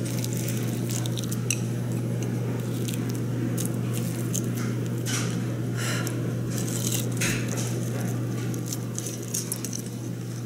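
Close-up eating sounds: chopsticks cutting and tearing at a crisp-edged okonomiyaki with browned, crunchy cheese, and chewing of the mouthful, heard as scattered small crackles and clicks. A steady low hum runs underneath.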